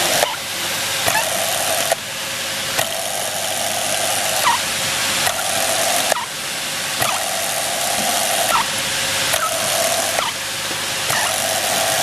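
Bench drill press running, drilling holes in zinc alloy furniture handle castings one part after another. Short rising squeals recur every second or two over a steady machine hiss.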